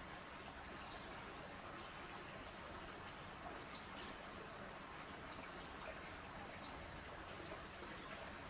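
Faint, steady outdoor background noise at a polar bear pool, an even hiss with water moving as a cub swims.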